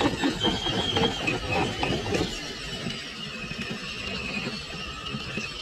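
Electric motor and gearbox of a radio-controlled rock crawler whining at a high pitch as it drives through deep mud. The whine sags slightly lower after the first second or so.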